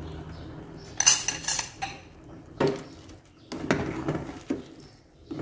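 Metal ladle stirring simmering duck curry in a metal pot, clinking and knocking against the pot: a quick cluster of clinks about a second in, then a few scattered knocks, as the just-added rock sugar, MSG and salt are stirred in.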